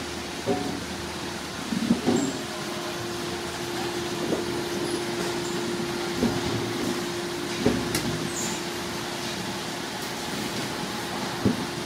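Fruit grading and packing line machinery running: a steady mechanical hum with one constant tone, broken by irregular knocks and clatter every second or two.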